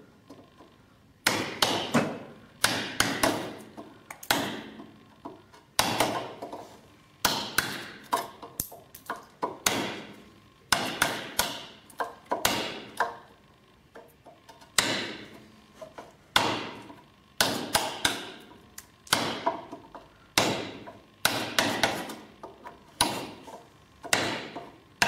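Wood chisel driven into a timber with quick repeated blows, in short bursts of a few strikes with brief pauses between, chopping out waste at a marked line beside a mortise.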